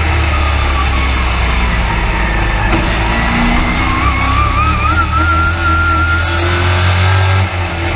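Race truck engine running hard at speed, heard from inside the cab, steady and loud. A thin wavering whine rises in pitch around the middle.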